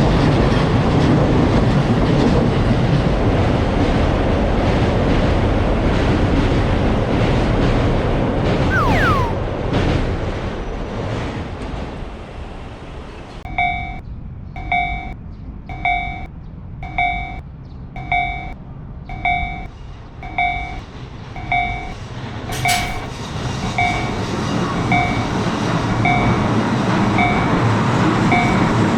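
A Seibu Railway train runs through the level crossing, with a short falling wheel squeal about nine seconds in. As its noise dies away, the Japanese crossing alarm rings steadily at about three strikes every two seconds. Near the end, train noise builds again under the bell.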